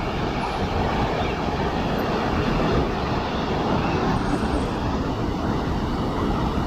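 Sea waves breaking and washing over a rocky shore, a steady rush of surf with no single wave standing out.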